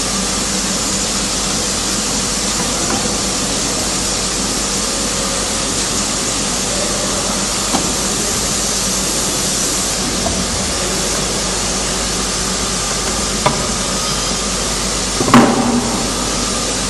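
Steady hiss of workshop and machine background noise, with a few hard knocks and clacks as plastic buckets are handled and fitted onto the bucket screen printer's holder. The loudest knock comes about 15 seconds in and rings briefly.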